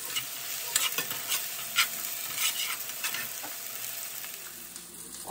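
Chopped vegetables sautéing in olive oil in a frying pan, sizzling steadily, with several short clinks and scrapes of a metal spoon against the pan.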